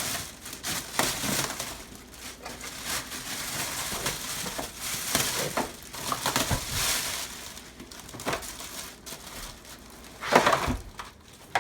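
Packing materials being handled while unpacking an espresso machine's box: rustling, scraping and crinkling with small clicks, and a louder knock near the end.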